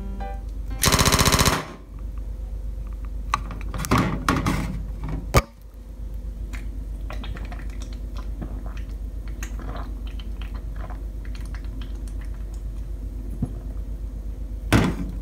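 Pull-tab drink can cracked open about a second in: a loud, crackling hiss of escaping gas lasting under a second. Two sharp knocks follow, then faint clicks over a steady low hum.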